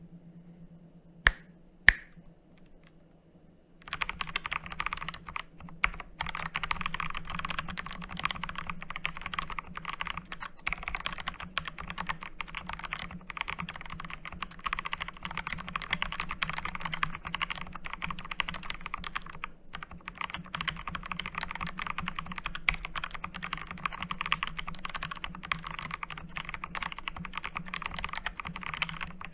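Fast, continuous typing on a Digital Alliance K1 Meca 2.7 RGB mechanical keyboard, a dense run of key clacks that starts about four seconds in, after two single sharp clicks.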